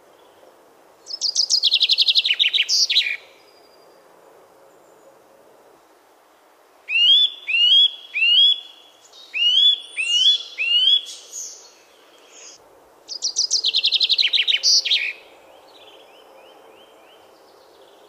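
A common chaffinch sings its fast, descending trilled song twice, about a second in and again about thirteen seconds in. Between the two songs a Eurasian nuthatch gives a run of about six rising whistles.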